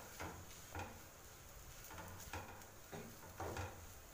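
Wooden spatula stirring and scraping mashed, spiced potatoes in a non-stick frying pan: a handful of faint, soft scrapes and taps at irregular intervals.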